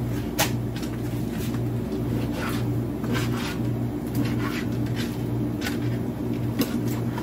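Kitchen knife cutting raw chicken thighs into cubes on a cutting board: sharp irregular knocks, roughly one a second, over a steady low hum.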